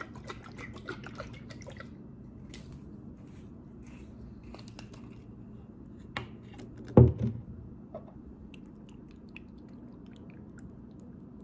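Olive oil being poured from a glass bottle onto the hands, with a quick run of small wet clicks in the first two seconds. About seven seconds in, the glass bottle is set down on the stone tabletop with a loud thump, followed by faint light ticks.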